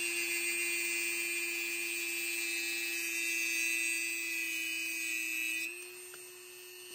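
Handheld rotary tool with an abrasive cut-off wheel grinding through a metal knife pin rod, a steady high whine with a gritty hiss. About 5.7 s in the wheel comes off the metal and the tool spins free, quieter and slightly higher in pitch.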